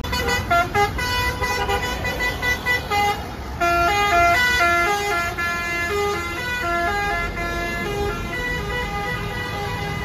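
Bus telolet basuri horn playing a melody: short separate notes for the first few seconds, then a continuous tune of quick stepping notes.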